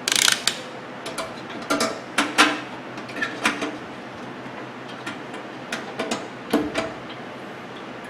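Scattered clicks and light knocks of small plastic and metal parts being handled inside a microwave oven, as a replacement light bulb is fitted into its socket. Several come close together in the first couple of seconds and a few more about six seconds in.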